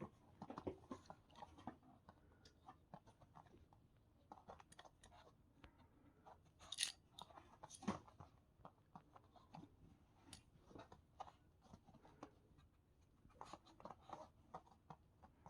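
Deshedding comb raking through a Pomeranian's coat to pull out dead undercoat: a faint run of short scratchy strokes and crunches, with two sharper clicks about seven and eight seconds in.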